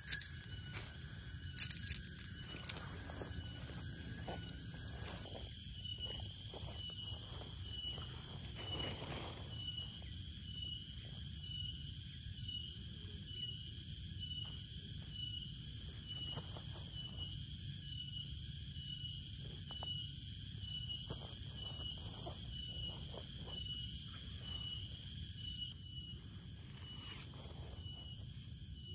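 A high-pitched animal call pulsing steadily from outdoors, cutting off suddenly near the end, over a low steady rumble. A few sharp clicks at the start.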